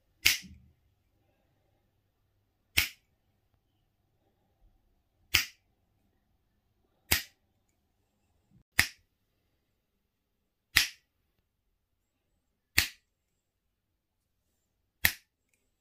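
Eight sharp finger snaps, roughly two seconds apart, made to trigger a CD4013 sound-activated switch, whose electret microphone picks up each snap to toggle the LED.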